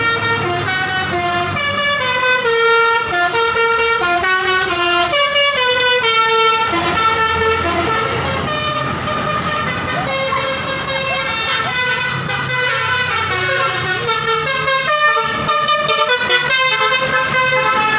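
Tourist bus's 'basuri' telolet multi-tone horn playing a tune: a continuous run of stepped horn notes that change pitch several times a second, over a low engine rumble.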